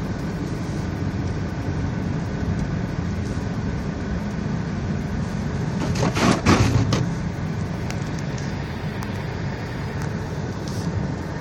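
Car driving on a snowy road: a steady low engine and road rumble, with a louder rushing noise lasting about a second, roughly six seconds in.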